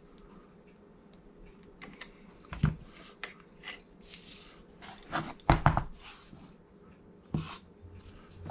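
Scattered clicks, taps and knocks from handling angle grinders, with heavier thumps about two and a half seconds in, around five and a half seconds in, and near the end.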